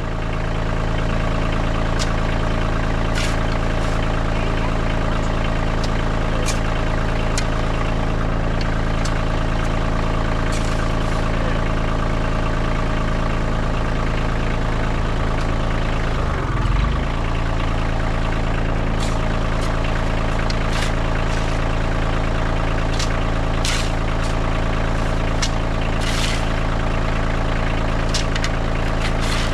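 Tractor engine running steadily at a constant speed, with scattered light clanks and a brief change in the engine note about halfway through.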